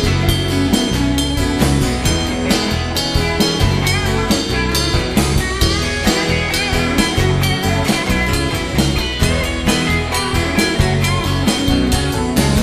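Live pop-rock band playing an instrumental passage: electric guitar over a steady drum-kit beat and bass, with no singing.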